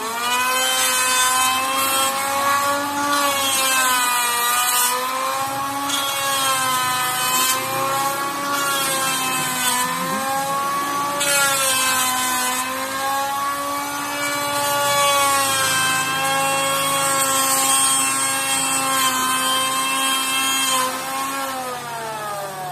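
Makita electric hand planer running. Its motor whine sags in pitch and recovers again and again as it is pushed over the wood, with a hiss on top. Near the end it slows down, then spins back up.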